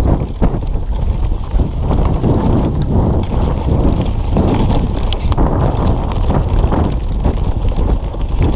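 Wind buffeting the microphone over the rumble of a downhill mountain bike rolling fast down a rough dirt trail, with many short rattles and knocks from the bike and tyres hitting bumps.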